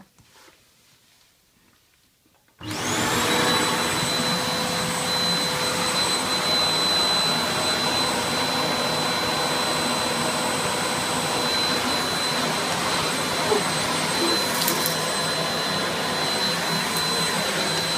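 Hoover Vortex 850 W vacuum cleaner switched on about two and a half seconds in, its motor spinning up with a rising whine and then running loud and steady as the floor attachment is tried on carpet.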